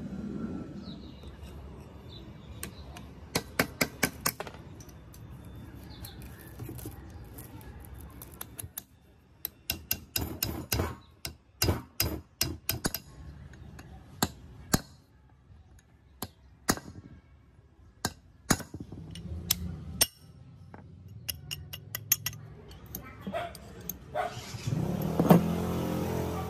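Sharp metallic clicks and taps, some in quick clusters and some single, from a steel hand tool working against a rusty cast-iron gear housing. Near the end, a louder scraping and handling noise as parts are handled.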